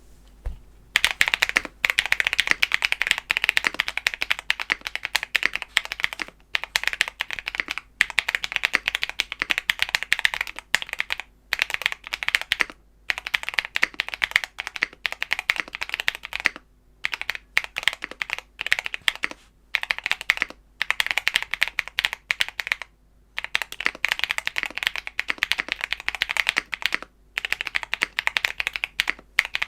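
Typing on a Tofu65 aluminium-case 65% mechanical keyboard with lubed Tecsee Purple Panda tactile switches, doubleshot PBT keycaps and PE-foam and O-ring mods: fast runs of keystrokes broken by short pauses every few seconds, starting about a second in.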